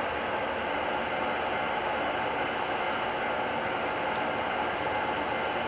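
JR Freight EF210 electric locomotive standing with its cooling blowers running: a steady whirring hiss with faint steady tones in it.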